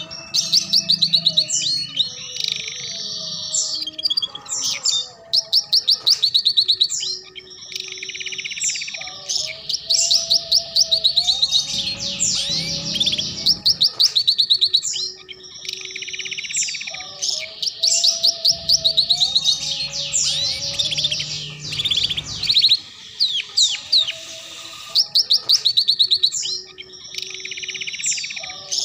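Domestic canary singing long phrases of very fast, high trills and rolls in the ngeriwik style, with a brief break every several seconds.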